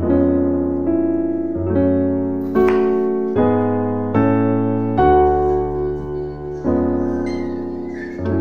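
Background music: piano chords, a new chord struck about every 0.8 s and each one fading away.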